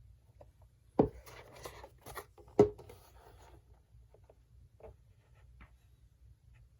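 Two sharp knocks about a second and a half apart, each with a short hollow ring, with rustling and rubbing between them, then a few faint clicks: a small tool tray being handled and set down.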